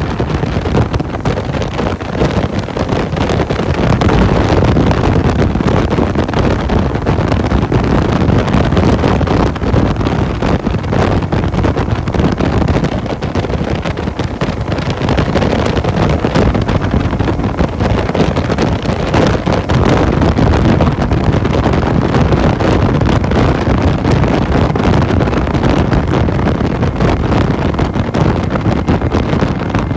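Steady wind rush buffeting the microphone of a Lifan LF250-D-E V-twin cruiser motorcycle at highway speed, with its engine and road noise underneath.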